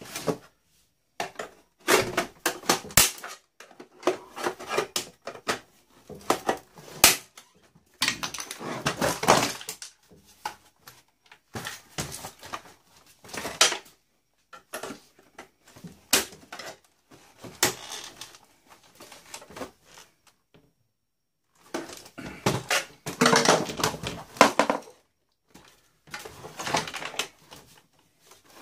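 Hard plastic and metal parts of a boombox clicking, rattling and scraping in irregular bursts as it is pulled apart by hand, with short silent gaps between.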